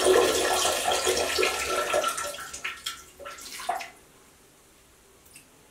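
A stream of urine splashing into a toilet bowl's water. It tapers off over the first few seconds and ends in a few last spurts about four seconds in.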